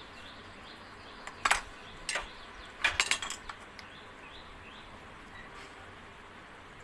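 A few sharp clicks and knocks as a kitchen knife and a star fruit are handled on a cutting board: one about one and a half seconds in, another around two seconds, and a quick cluster around three seconds. They come as the star fruit's ridges are being shaved off. Faint bird chirps sound in the background.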